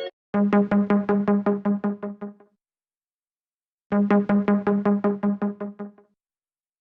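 An Apple iPhone ringtone slowed to 70% speed: one electronic note repeated rapidly, about five times a second, in two bursts of about two seconds each with a pause between, each burst fading at its end.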